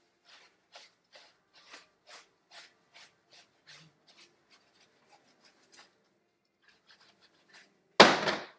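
Gloved hands scrubbing shampoo lather into a poodle's wet, curly coat: rhythmic rubbing strokes about twice a second that die away after about six seconds. Near the end comes a short, sudden rush of noise, the loudest sound.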